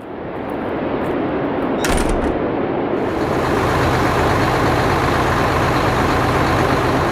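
Sound effect of a heavy railway engine starting up: a building rumble, a short hiss and thump about two seconds in, then a steady engine drone.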